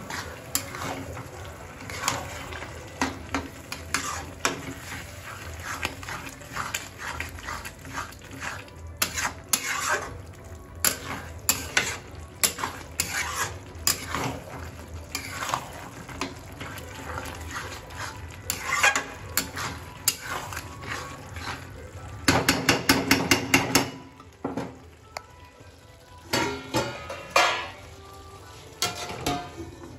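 Long metal spatula stirring and scraping thick onion masala around a metal kadai, with irregular clinks and scrapes against the pan. About 22 seconds in comes a quick run of rapid scrapes lasting a second or two, the loudest part.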